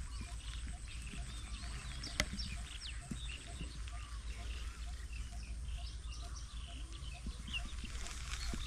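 Small birds chirping, many short high calls and quick pitch glides overlapping throughout, over a steady low rumble. One sharp click about two seconds in.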